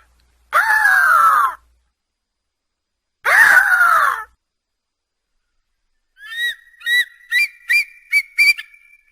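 Eagle calls: two long, harsh screams that fall in pitch, then a quick series of about seven short, high piping notes that rise a little in pitch.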